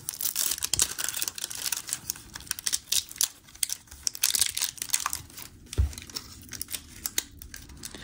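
Clear plastic wrap on a toy blind-box canister crinkling and tearing as fingers pick and pull at it: a rapid, irregular string of crackles and snaps.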